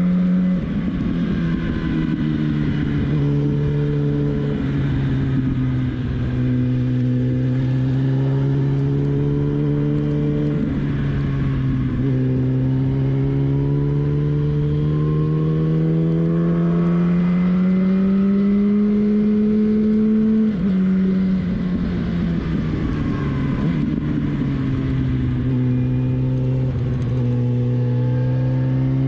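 Sport motorcycle engine running steadily on the road, heard from the rider's seat. Its pitch climbs slowly and drops back a few times as the throttle and gears change, with wind noise over it.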